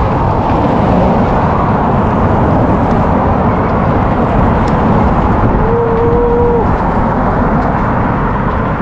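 Steady, loud rush of road traffic and wind noise from riding a bicycle alongside a busy multi-lane road, with cars passing close by. A short steady tone, held about a second, sounds about six seconds in.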